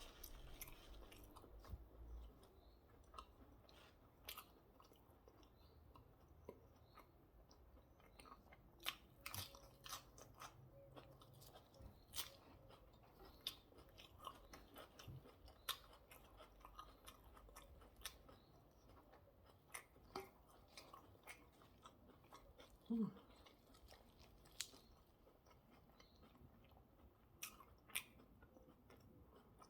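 Quiet, close chewing and mouth sounds of a person eating a hamburger and salad: scattered soft crunches and wet clicks. About two-thirds of the way through there is one short hum-like sound.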